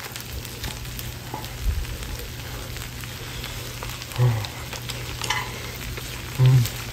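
Enoki mushroom fried rice sizzling steadily on a hot pot lid (sotttukkeong) while a metal spoon stirs through it. Two brief low voice hums come about four seconds in and near the end.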